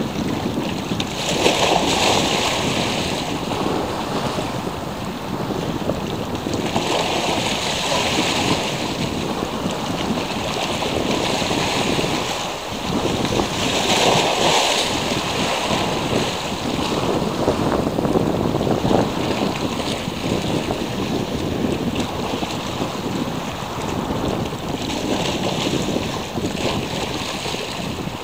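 Sea waves washing in, each surge swelling and easing about every six seconds, with wind buffeting the microphone.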